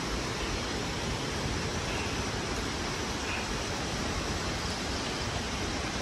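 Steady, even rushing of a waterfall, with no other events.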